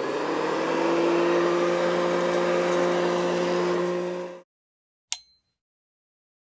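A steady machine hum with a slight rise in pitch at the start runs for about four seconds and then cuts off abruptly. About a second later comes a single sharp click with a short high ring.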